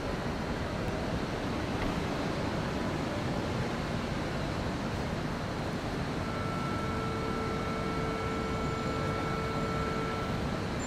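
Keikyu New 1000 series electric train creeping slowly toward the platform, a steady rushing rumble. From about six seconds in until near the end a steady whine of several pitches sounds over it.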